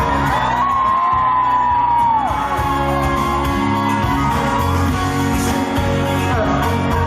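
Live pop band music with a long high note held for about a second and a half that then slides down.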